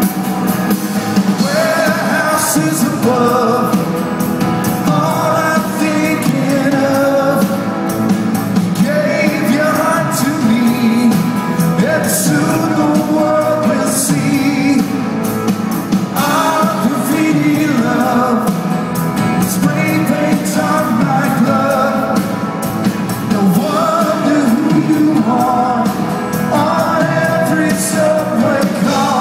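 Live pop-rock band playing a song, with a lead vocal over electric guitar, upright bass and drum kit, heard from the audience in a concert hall.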